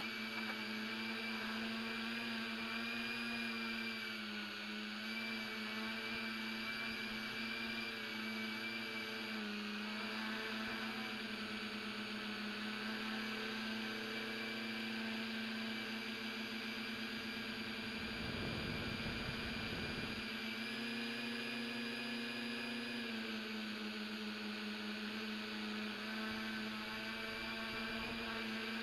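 Rhino tricopter's motors and propellers whining steadily in flight, the pitch dipping and recovering a few times as the throttle changes. A rough burst of noise lasts about two seconds, about two-thirds of the way through.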